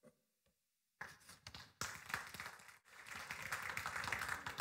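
Faint scattered taps and rustling noise.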